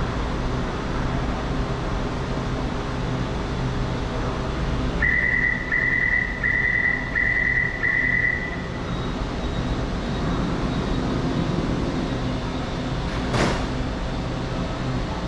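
Steady hum of a metro train standing at the platform, with five short high beeps of the door-closing warning about five seconds in and a single sharp click about thirteen seconds in.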